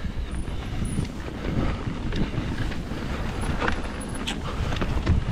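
Mountain bike riding down a rough dirt trail: a steady rumble of tyres over the ground, with scattered knocks and rattles from the bike over bumps, and wind on the microphone.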